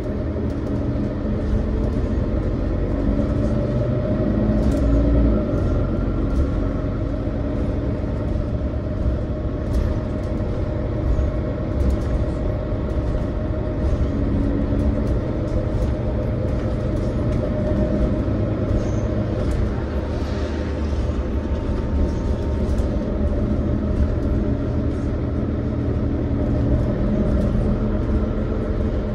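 Mercedes-Benz Citaro O530 city bus on the move, heard as a steady low rumble of engine and road noise with faint drifting tones and frequent small rattles.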